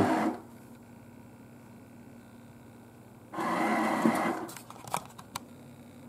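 Motion-sensing paper towel dispenser's motor running for about a second as it feeds out a sheet, followed by a few light clicks.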